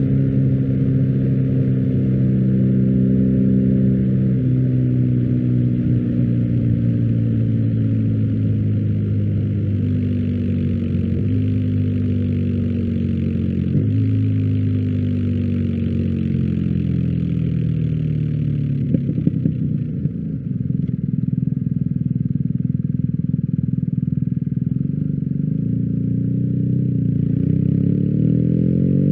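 BMW R1250GS boxer-twin engine running through an Akrapovic exhaust. The pitch falls slowly for much of the time, steps up twice about a third and halfway through, settles lower, and rises again near the end.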